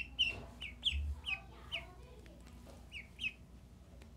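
Duckling peeping: short, high, downward-sliding peeps, several in quick succession over the first two seconds, then two more about three seconds in.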